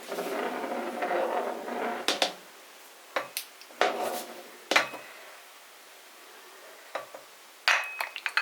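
Dishes and kitchen utensils being handled: a busy clatter for about two seconds, then a string of separate knocks and clinks, one ringing briefly near the end.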